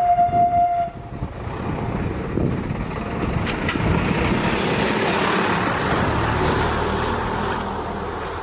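A short steady horn blast in the first second, then an E235 series electric train passing, its rumble building to a peak about five seconds in and easing off.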